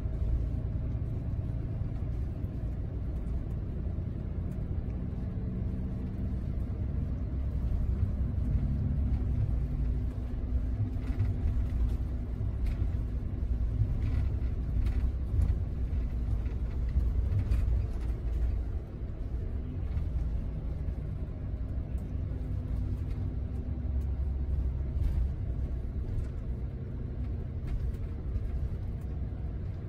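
Cabin noise inside a Scania double-decker coach driving at speed: a steady low rumble of engine and road, the engine's tone drifting slightly, with a few light ticks in the middle.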